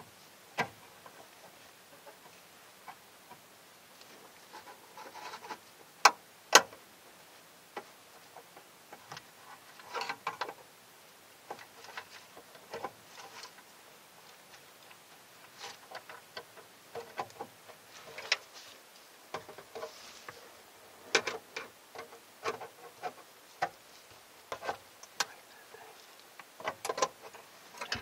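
Irregular small clicks and taps of needle-nose pliers and a screwdriver working the plastic standoff clips that hold a circuit board, with two sharp snaps about six seconds in.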